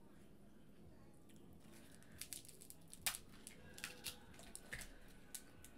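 Cooked crab leg shells being cracked and snapped apart by hand to get at the meat. It comes as a string of sharp cracks and clicks starting about two seconds in, the loudest one about halfway through.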